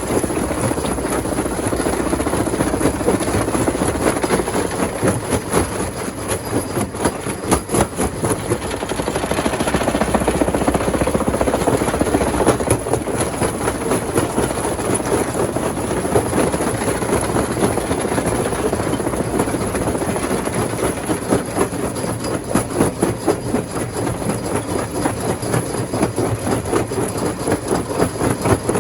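Rock crusher machine running steadily under load, its heavy engine drone overlaid with a dense, fast rattle and clatter of stone being broken.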